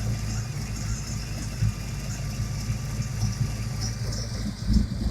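Small-block Ford Windsor V8 idling steadily, with a steady high hiss over its drone: unmetered air drawn in past a leaking injector O-ring on cylinder 7, a vacuum leak the owner calls a hum and "so loud". Uneven low buffeting, like wind on the microphone, comes in near the end.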